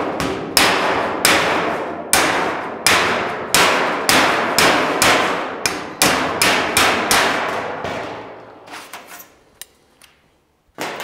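Panel slapper striking a steel car bonnet against a dolly: about a dozen ringing metal slaps, roughly one and a half a second, then a few lighter taps and one more slap near the end. The slapping is lowering a high spot on the bonnet's edge.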